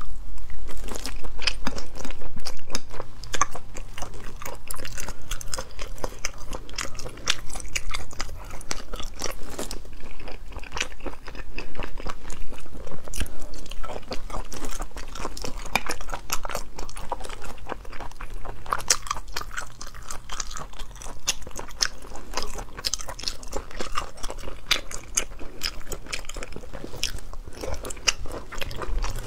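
Close-miked chewing and mouth sounds of eating braised sea snails in chili oil, with a steady run of small wet clicks and smacks as the meat is pulled from the shells and chewed.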